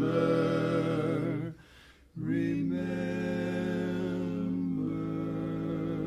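Barbershop quartet singing a cappella in close four-part harmony, holding a long chord that breaks off about a second and a half in, then after a short pause swelling into another long held chord.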